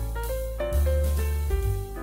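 Background music: a tune of held notes over a strong low bass line, the notes changing every half second or so.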